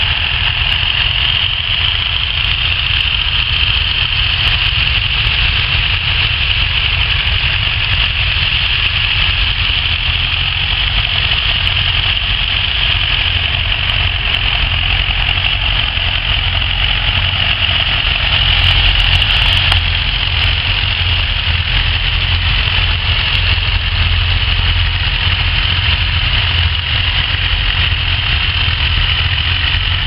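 Tractor diesel engines running steadily under load while pulling ploughs through the soil.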